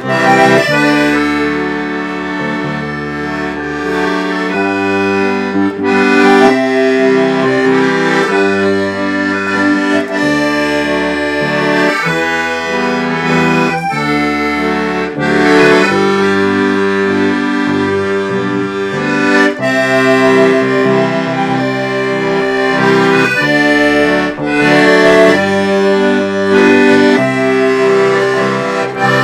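Accordion and bass playing a waltz: the accordion carries the tune over held chords, with a bass line moving underneath.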